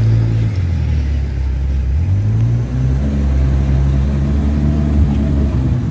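Ferrari 812 Superfast's naturally aspirated V12 running at low revs as the car moves in traffic, its pitch dropping about half a second in and rising again about two seconds in.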